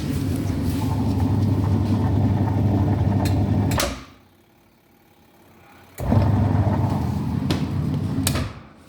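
Washing machine motor driving the drum with a steady low hum. It cuts out with a click about four seconds in, stays off for about two seconds, then starts again suddenly and stops with another click near the end.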